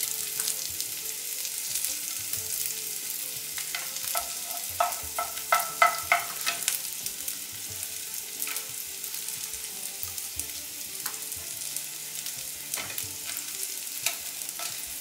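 Shallots, ginger and green chillies sizzling in hot oil in a pan as they are stirred, with a cluster of sharp clicks from the stirring against the pan around the middle.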